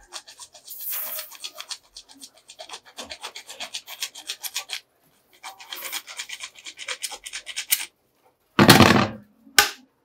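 A hand-held hacksaw blade sawing through a short length of green PVC water pipe in quick back-and-forth strokes, in two bouts with a brief pause between them. Near the end there is a single louder clatter, followed by a sharp click.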